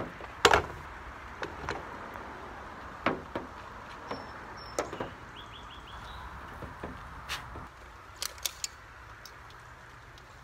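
A circular saw, not running, being handled and set on a ribbed plastic septic riser: a sharp knock about half a second in, then scattered lighter clicks and taps over a steady background hiss.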